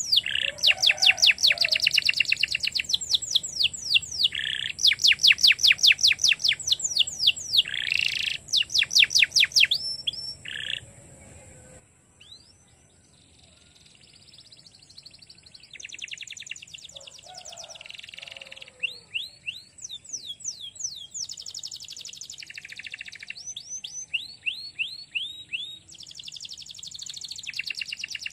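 Domestic canary singing: fast trills of rapidly repeated down-sweeping notes, phrase after phrase. It pauses for a few seconds about halfway through, then resumes more softly.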